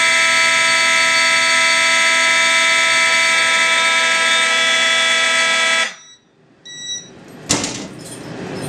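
Fire alarm test board with several notification appliances sounding together, the system put into alarm from a pull station: one loud continuous, steady alarm tone. It cuts off abruptly about six seconds in, followed by a few faint short beeps and a clack.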